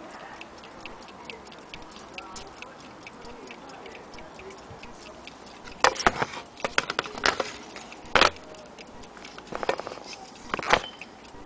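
Vintage wind-up mantle clock ticking quickly and steadily. From about six seconds in, loud sharp clicks and knocks from the clock being handled break over the ticking.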